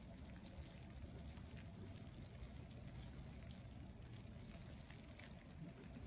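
Faint city street ambience: a steady low rumble with soft scattered ticks.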